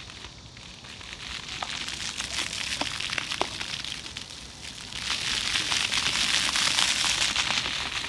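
Water jets of a floor fountain splashing onto wet stone paving, a steady spatter with scattered sharp drop sounds; the splashing grows louder about five seconds in.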